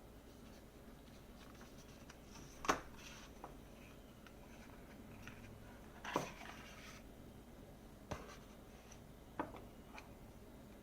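Faint handling of wireless earbuds' packaging, light scratching and rubbing broken by five sharp clicks or taps, the loudest about a third of the way in and just past the middle.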